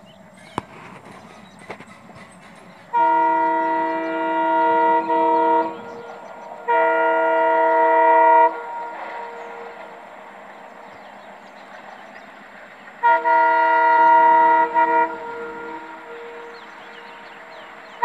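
Indian Railways diesel locomotive sounding its horn three times as it approaches, each blast a chord of several steady tones lasting about two seconds, over the faint rumble of the oncoming train.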